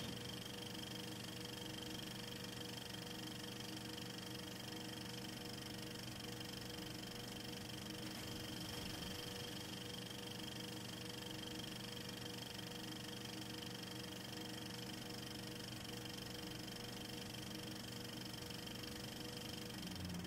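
Steady hum and hiss with a few faint, unchanging whining tones and nothing else: the background noise of a silent home-movie transfer.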